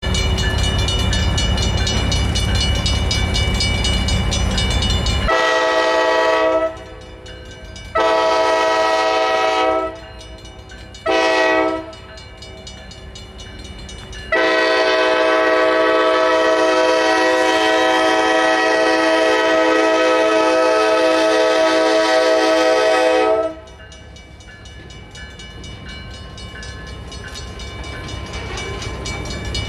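Diesel locomotive's air horn sounding the grade-crossing signal: two long blasts, a short one, then a final long blast held about nine seconds. The crossing bell rings faintly underneath. After the horn stops, the locomotive's engine and wheels grow louder as it nears the crossing.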